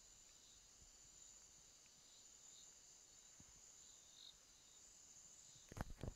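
Faint, steady high-pitched chorus of night insects such as crickets. Near the end come a few sharp knocks.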